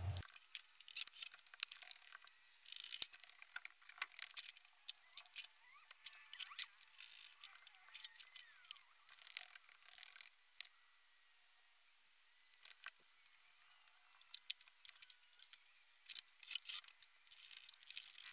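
Faint scattered clicks, small rattles and short rustles of hands handling electrical components and cables while fixing them to an OSB board.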